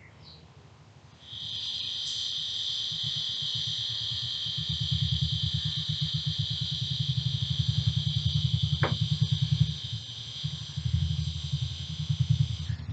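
A motorcycle engine running, a low, rapidly pulsing throb that strengthens about four seconds in. A steady high-pitched whine starts about a second in and sits above it.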